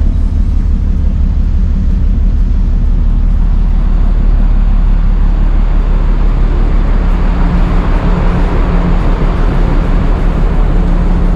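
Wind buffeting the microphone on the open deck of a moving car ferry, a loud steady rumble with a noise of rushing air that swells in the middle. A low hum from the ship's machinery rises under it about two-thirds of the way in and again near the end.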